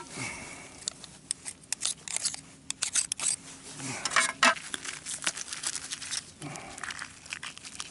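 Sharp clicks and scrapes of oyster shells being pried off shoreline rocks, coming in quick clusters in the first few seconds and again about four seconds in.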